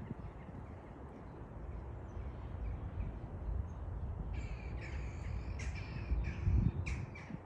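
A bird giving a series of short, harsh calls, starting a little past halfway, over a low outdoor rumble.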